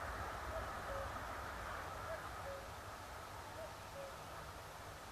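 Common cuckoo calling three times, a falling two-note cu-coo about every one and a half seconds. Under it is the fading sound of a Class 46 Sulzer diesel locomotive hauling a parcels train up a steep bank.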